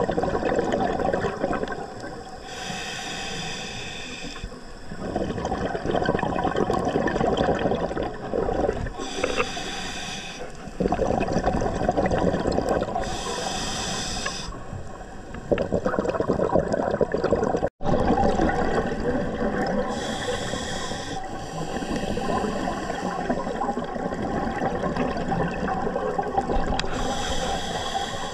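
Scuba diver breathing through a demand regulator underwater: five short high hisses of inhalation, a few seconds apart, alternate with longer rumbling gurgles of exhaled bubbles.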